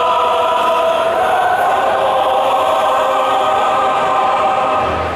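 Choral music played over loudspeakers: a choir holding long sustained chords, the chord changing about a second in and fading near the end.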